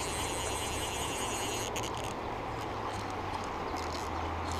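Steady rushing of a riffling river, with a few faint clicks about halfway through.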